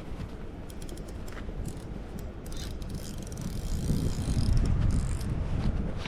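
Fishing reel turning with a fast ratcheting click, over a low rumble that grows louder about four seconds in.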